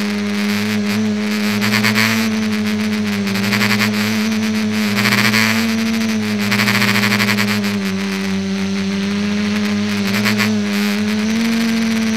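Propellers and motors of an ETFD2 radio-controlled aircraft in flight, heard from its onboard camera: a steady buzzing hum whose pitch wavers slightly up and down, with a rushing noise that swells and fades every few seconds.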